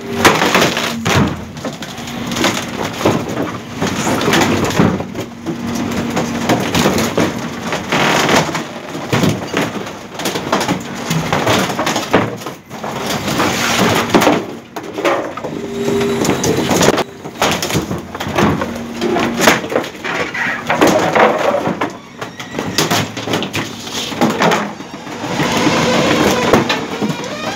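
Garbage truck's packer blade crushing old wooden wardrobe panels in the hopper: a continuous run of cracking, splintering, knocking and scraping wood, with a low steady hum that comes and goes underneath.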